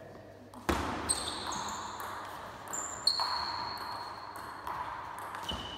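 Table tennis rally: the celluloid-type ball clicking back and forth off the bats and the table, a string of sharp knocks with a short ringing tone after several of them.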